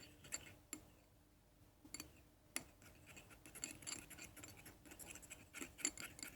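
Teaspoon scraping and clinking faintly against a small plate while liquid soap and salt are stirred, in irregular strokes with a short lull about a second in.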